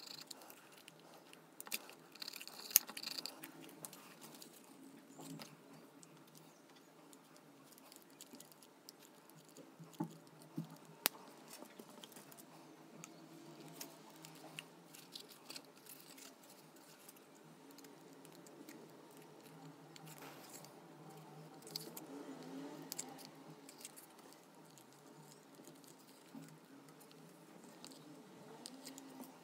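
Faint clicks, taps and rubbing from hands working on popsicle-stick wooden pieces with small tools: a tape measure and pencil, then a hot glue gun. A few sharper clicks stand out.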